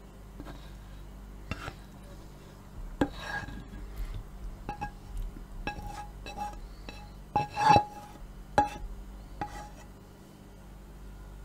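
Plastic slotted spatula scraping and knocking the last fried zucchini pieces out of a nonstick frying pan into a glass bowl. It comes as a string of irregular knocks and scrapes, some ringing briefly, with the loudest knocks a little past halfway.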